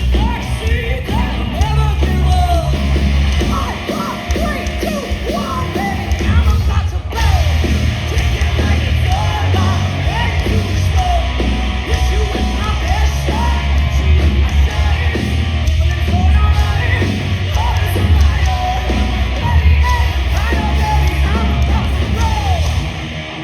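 Live hard rock band playing a song at full volume, with heavy bass and drums and a singer's yelled vocals over them.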